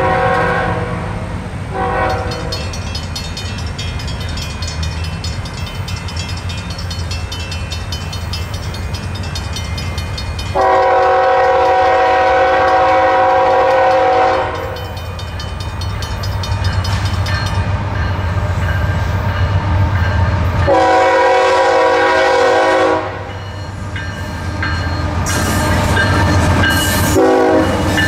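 Multi-chime diesel locomotive horn on a CSX freight train powered by a GE ES44AH and a CW44AC, sounding a series of blasts. There are short blasts at the start, a long blast of about four seconds about ten seconds in, another of about two seconds around twenty-one seconds in, and quick toots near the end, all over the steady low rumble of the passing locomotives and train.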